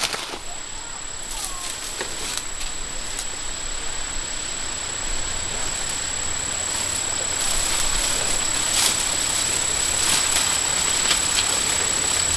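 Leaves and twigs rustling and crackling as leafy branches and vines are pulled and handled, busier in the second half. Behind it, a steady high-pitched insect call holds throughout.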